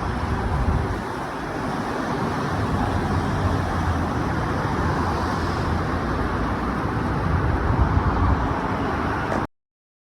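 Steady vehicle and road-traffic noise with a heavy low rumble, cutting off suddenly near the end.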